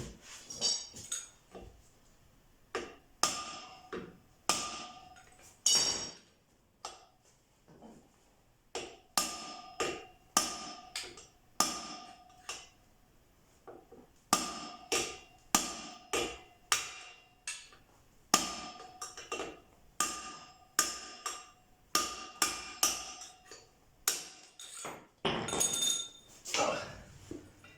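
Hammer blows on a metal pipe used as a drift, knocking a worn rear wheel bearing out of a Suzuki motocross wheel hub. The blows land one at a time, about one a second with short pauses, and each one rings briefly. They alternate a little from side to side of the bearing.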